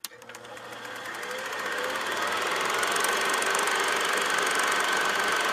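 Film projector running, a fast mechanical clatter of the shutter and film advance, growing louder over the first couple of seconds and then steady.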